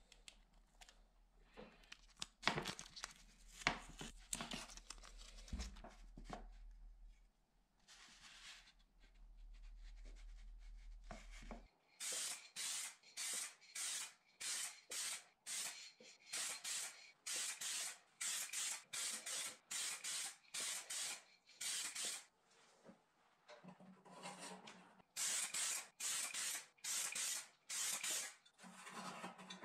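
Aerosol spray can of car paint hissing in many short bursts, about one to two a second, from about twelve seconds in, with a few longer bursts near the end. Before that come rustling and sharp clicks as small painted flashlight parts are handled.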